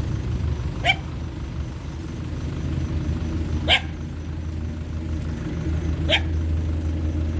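A dog barking three times, single barks a couple of seconds apart, over a steady low rumble.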